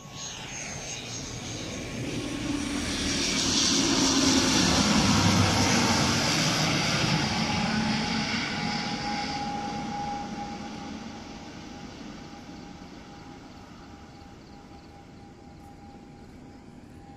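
Airplane engines passing close by: the noise swells to a peak about five seconds in and then fades away, with a steady whine that slowly falls in pitch as the aircraft goes past.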